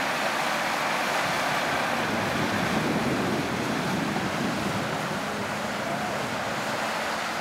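Mitsubishi Montero's 3.2-litre turbodiesel engine running under load as the SUV ploughs through a flooded, muddy field levelling it, with mud and water churning and sloshing around the wheels: a steady wash of noise.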